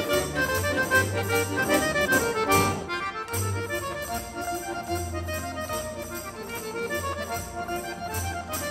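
Instrumental background music, a little quieter from about three seconds in.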